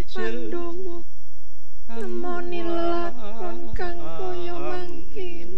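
A single voice singing a drawn-out, unaccompanied Javanese vocal line, with long held notes and wavering ornaments, breaking off for a moment about a second in before going on.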